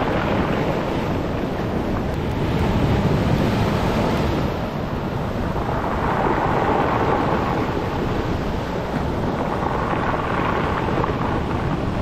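Surf washing in over a beach of rounded pebbles and cobbles and drawing back, the stones rolling and rattling in the water. The wash swells every few seconds as each wave comes in.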